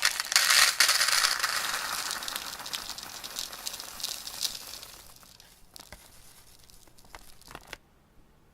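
Dense crinkling, rattling noise that starts suddenly, is loudest in the first couple of seconds and fades over about five seconds, then gives way to scattered sharp clicks that stop abruptly near the end.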